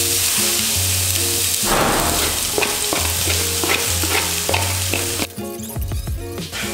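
Diced red onion sizzling as it is tipped into a pan of hot olive oil and rosemary, with a spatula clicking and scraping against the pan as it is stirred. The sizzle cuts off suddenly a little over five seconds in.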